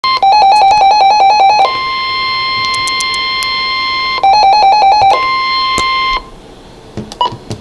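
Electronic emergency-alert tones opening a weather warning broadcast. A rapid two-pitch warble runs for about a second and a half, followed by a steady single-pitch tone for about two and a half seconds. A shorter warble and steady tone follow, and the tones stop a little over a second before the end, leaving only faint clicks.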